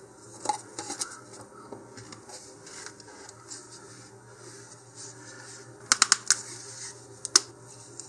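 3D-printed plastic nose cone pieces being handled and fitted together by hand, with light scraping and a quick cluster of sharp plastic clicks about six seconds in.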